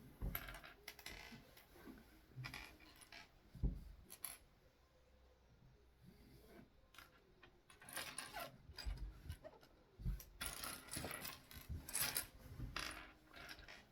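Small plastic Lego pieces clicking and rattling as they are handled and fitted together into a minifigure, in scattered faint clicks that come thicker in the second half.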